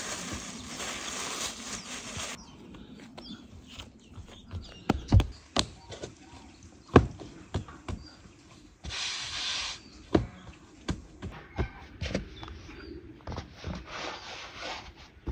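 Hands working dough on a floured wooden board: irregular knocks and thumps as the dough is pressed and slapped against the board, the loudest about five and seven seconds in, with bursts of rustling between them.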